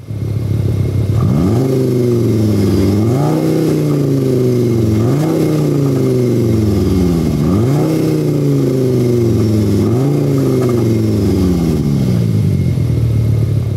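Škoda Kodiaq RS's two-litre petrol four-cylinder engine, its note dressed up by a speaker-made artificial exhaust sound, a strange artificial burble meant to make a four-cylinder sound like a V8. The revs jump up quickly and then sag slowly, five times over.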